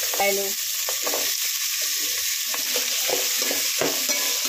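Chopped vegetables and peanuts sizzling in hot oil in a metal pot, with a metal spatula stirring and scraping against the pot bottom at irregular moments. They are being fried (vegetable tempering for upma).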